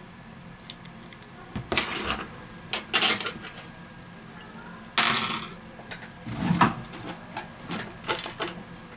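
Small tools and parts handled on a repair workbench: a handful of short clattering and scraping noises, each under a second, with pauses between.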